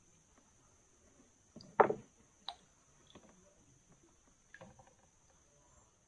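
A few knocks and bumps against a canoe, the loudest a sharp thud about two seconds in, followed by a smaller click and a few faint taps.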